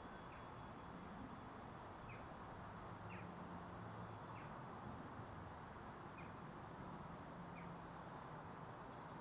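Faint low hum of a distant Class 66 diesel locomotive approaching with a freight train, with short bird chirps about once a second.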